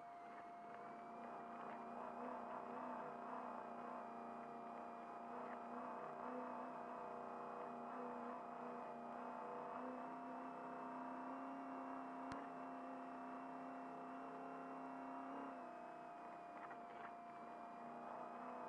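Trophy Truck's race engine running at steady revs at cruising speed, heard from inside the cab. A single sharp click sounds about twelve seconds in.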